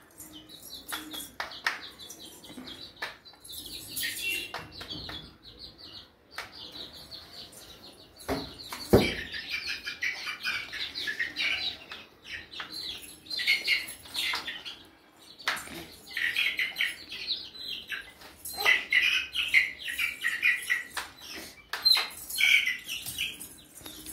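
Young chickens peeping over and over in short, high chirps, growing busier after a loud thump about nine seconds in, with scattered knocks and clicks.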